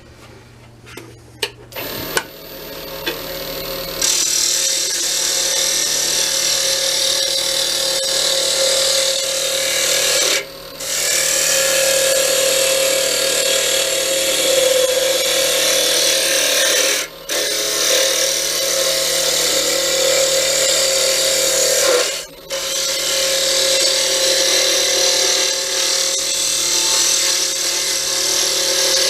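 Wood lathe starting up with a steady motor hum, then a tool working a spinning cherry pen blank, a loud hissing cut that stops briefly three times as the tool is lifted off.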